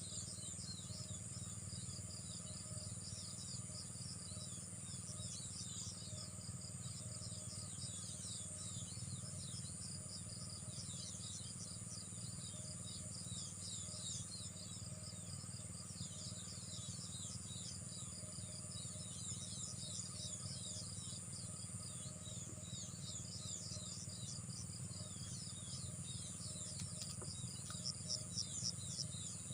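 Small birds chirping in quick, short falling notes over a steady high insect drone, with a few louder chirps near the end.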